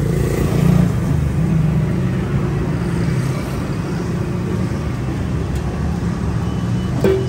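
Steady low rumble of road traffic, with a brief knock about seven seconds in.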